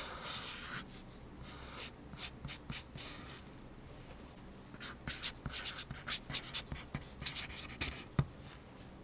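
Felt-tip marker drawing and writing on paper: short scratchy strokes in bursts, busiest from about five to eight seconds in, with a single light knock near the end.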